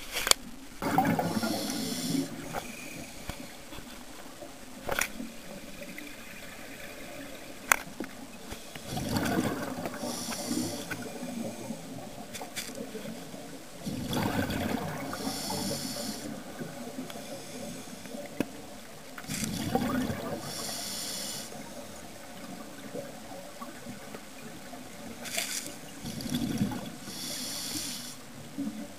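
Scuba diver's regulator breathing underwater, heard through the camera housing: five gurgling rushes of exhaled bubbles a few seconds apart. Three sharp clicks come in the first eight seconds.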